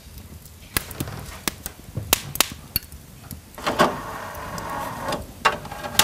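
Sony disc player's tray motor running for about a second and a half past the middle as the disc tray slides out. Several sharp clicks and knocks come before it, and another click comes at the end as a disc is set on the tray.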